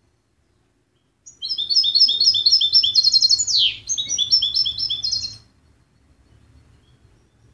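European goldfinch singing one song phrase of about four seconds, starting about a second in: fast repeated high twittering notes, one long downward-sliding note midway, then more quick notes before it stops.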